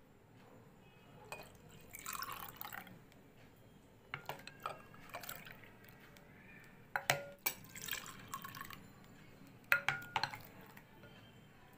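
Milk tea being poured into glasses of tapioca pearls in several short splashing pours, with a few sharp clinks against glass.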